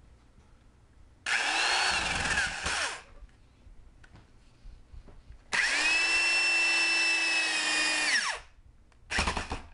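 Orange corded electric drill working into a wooden frame rail, run in three goes: a short run about a second in, its pitch rising and then sagging; a longer steady run from about five and a half seconds that winds down when the trigger is let go near eight seconds; and a brief burst near the end.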